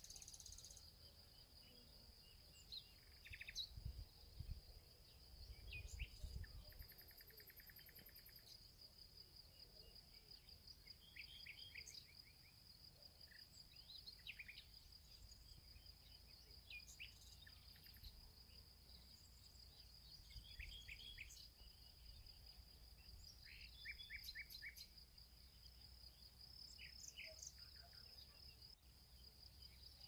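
Faint outdoor nature ambience: a steady high insect trill with scattered short bird chirps, and soft low rumbles about four and six seconds in.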